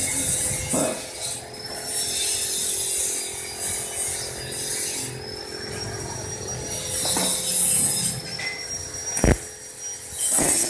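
Workshop work noise: repeated rasping, scraping sounds, with two sharp knocks near the end.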